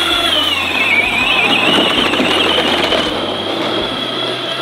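Electric ride-on toy tractor's motor and gears whining steadily as it drives through a muddy puddle, with the wheels splashing and churning.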